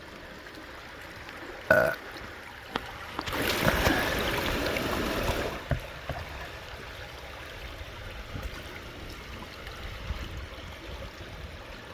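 Creek water running steadily. A short throaty vocal sound comes about two seconds in, and a louder rush of noise lasts about two seconds starting a little after three seconds in.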